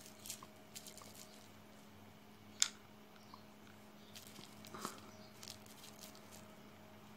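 Faint clicks and taps of a plastic Mercedes-Benz W202 remote key fob and its coin-cell batteries being handled, taken out and fitted back in. The sharpest click comes about two and a half seconds in and a softer one near five seconds, over a faint steady hum.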